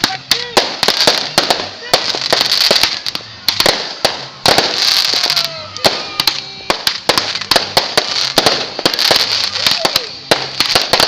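Small fireworks crackling, with many sharp pops in quick, irregular succession over a hiss that swells and fades every second or two.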